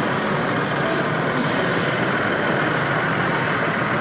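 Steady din of a crowded hall, with a few faint clicks.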